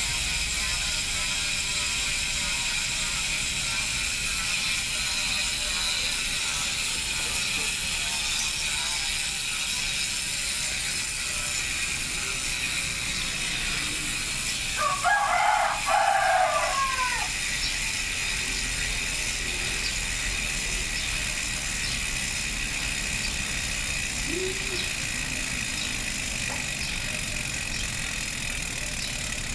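HASSNS Pro 4 freehub (six pawls, 120 engagement points) ticking rapidly as the rear wheel freewheels: a steady, fast buzz of clicks. A rooster crows once about halfway through.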